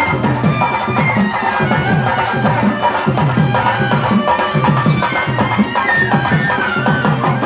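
Live bhajana band music: a reedy clarinet melody with an electronic keyboard over a steady drum beat.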